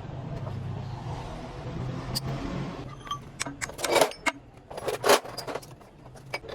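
A motor runs with a steady low hum and stops about three seconds in. After that, metal parts and tools clink and clank against each other several times, with two louder clanks about a second apart.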